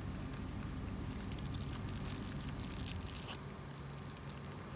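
Faint clicks and rustling of tools and packets being handled while searching through a windshield chip repair kit, over a steady low hum.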